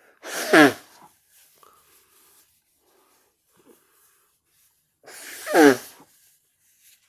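A person blowing their nose forcefully twice, each blow about a second long with a honk that falls in pitch.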